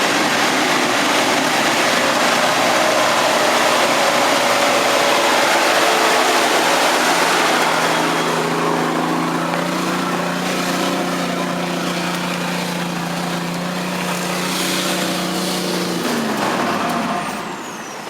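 Nissan Patrol's diesel engine revving hard under load in a deep muddy rut, with a loud rushing noise over it for the first half. The engine then holds a steady high note and drops off sharply near the end as the revs fall.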